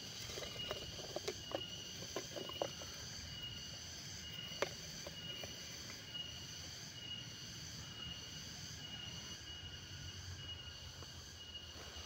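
Insects chirping in a steady, high, pulsing rhythm. A few light clicks and taps, typical of a plastic insect box being handled, come in the first few seconds and once more a little later.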